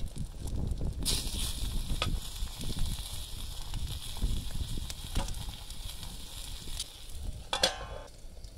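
Eggs frying in oil in a cast iron skillet over charcoal, a steady sizzle starting about a second in, with a few light clicks of metal tongs as pepper pieces go into the pan. Near the end a metal platter is set over the skillet as a lid with a short ringing clatter.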